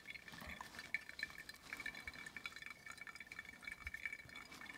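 Brewed coffee faintly trickling and dripping from a Flatpack pourover dripper into a glass server below, with scattered small drips, during a slow drawdown through a fine grind.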